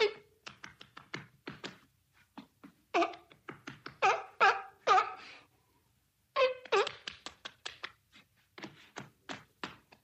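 A seal barking in short, harsh pitched calls, interleaved with rapid runs of sharp claps of its flippers. Barks come at the start, in a cluster around the middle, and again just after, with clapping in between.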